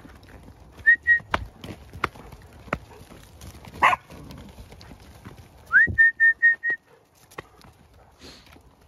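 Shrill whistled signals to a sheepdog: two short notes, then a note that rises and breaks into a quick run of about five pips just before the seven-second mark. Sheep hooves knock and scuff on the frozen ground throughout, with a brief sharper sound about four seconds in.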